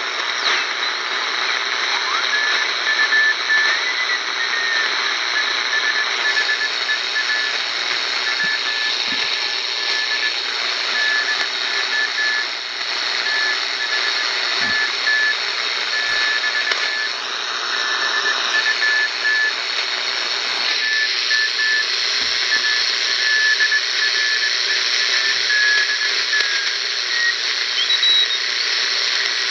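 Morse code (CW) signal received on a WWII BC-454B shortwave receiver: a single steady-pitched beep keyed on and off in dots and dashes over loud band hiss and static, in the amateur band just above 3.5 MHz. The keying stops near the end.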